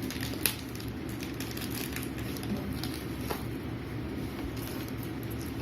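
Light handling of a small lavalier microphone's clip and cable: a few faint clicks, about half a second in and again past three seconds, over a steady low hum of room noise.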